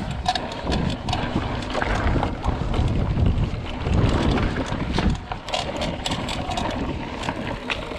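Mountain bike riding over a dirt and gravel track: wind rumbling on the camera microphone, with tyre crunch and many short, sharp rattles and clicks from the bike over the bumps.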